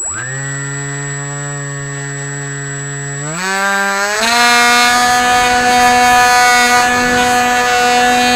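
Brushless outrunner electric motor (Hawking 2826, 2200 Kv) driving a 6x4E APC pusher propeller on an AXN Floater-Jet RC plane, heard from a camera on board. It spools up sharply to a steady whine, then is throttled up to a higher pitch about three and a half seconds in as the plane takes off and climbs, with a thin high whistle alongside.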